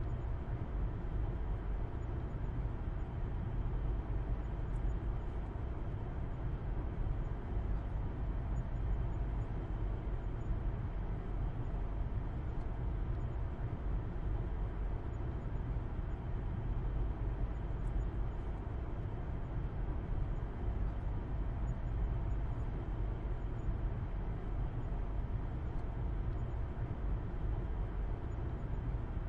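Steady low rumble of a car driving along at an even speed: engine hum and road noise heard from inside, without changes.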